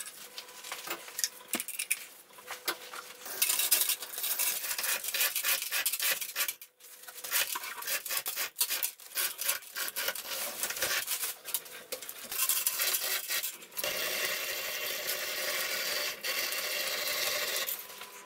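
Metal clinks and scrapes of hand tools and bolts on a cast-iron milling-machine tilting table, mixed with rubbing and rustling of a rag and plastic sheeting. The rubbing turns into a steadier run in the last few seconds.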